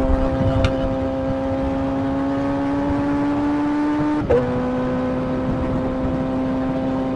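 Kawasaki ZX-25R inline-four engine pulling under way, its note rising slowly, then dropping sharply with a quick upshift from third to fourth gear about four seconds in and holding steady after. Wind rumbles on the microphone throughout.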